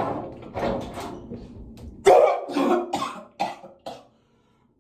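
A man coughing hard several times in quick succession, a staged cough put on to fake coughing up blood. The coughs begin about two seconds in and break off suddenly near the end.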